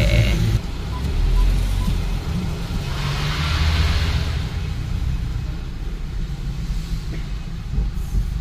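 Car being driven, a steady low rumble of engine and tyres heard from inside the cabin, with a swell of hiss about three seconds in.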